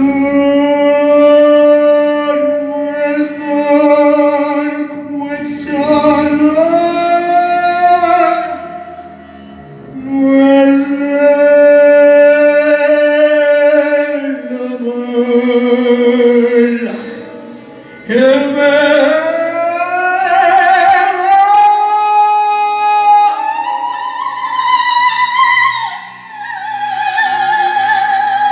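A solo singing voice holding long notes in phrases a few seconds each, sliding up and down between pitches, with a wavering vibrato on the last held note.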